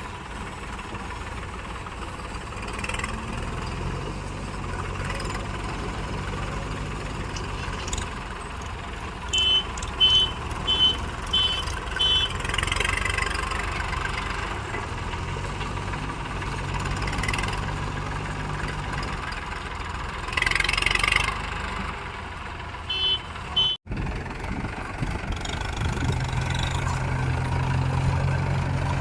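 JCB 3DX backhoe loader's diesel engine running and working under load, its note rising and falling as it digs and loads, with a short series of reversing beeps about ten seconds in and again a little before a brief break in the sound.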